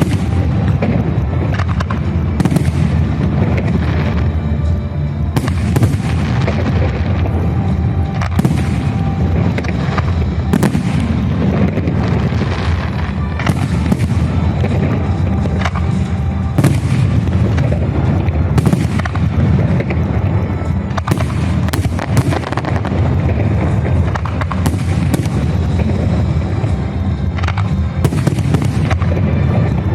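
Fireworks salute: firework shells bursting in loud bangs, one every second or two, over a continuous low rumble of booms.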